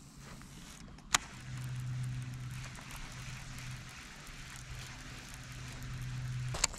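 Baitcasting reel being cranked to retrieve a crankbait: a sharp click about a second in, then a steady low whir that runs until near the end.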